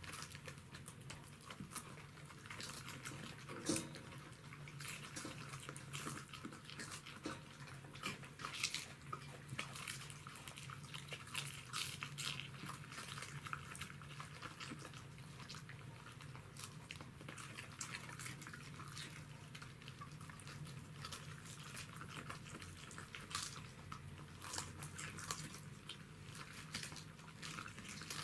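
Pembroke Welsh corgis chewing raw cabbage leaves: an irregular, continuous run of small crisp crunches and mouth clicks, some louder bites standing out, over a faint steady low hum.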